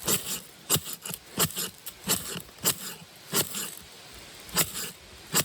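Ferrocerium fire-starter rod being struck, about eight short, sharp scrapes roughly every 0.7 s with a brief pause near the middle, as sparks are thrown to light a fire.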